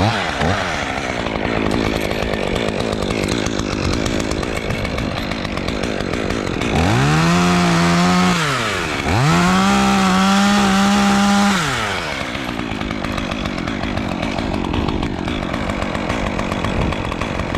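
Chainsaw running, throttled up hard twice, for about a second and then about two seconds, near the middle, then dropping back to a lower running speed.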